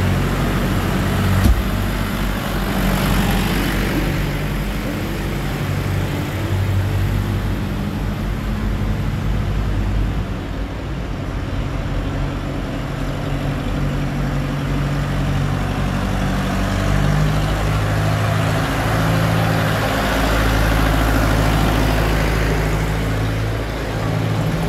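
John Deere tractor's diesel engine running as it drives slowly past, followed by the engines of other old vehicles in the parade. A deeper, steady engine hum is loudest in the last few seconds.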